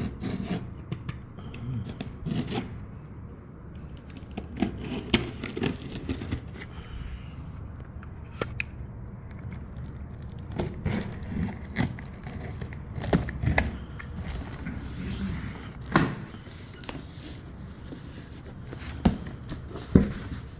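A cardboard shipping box being opened by hand: packing tape cut and torn, and cardboard tearing and scraping, with scattered sharp knocks as it is handled.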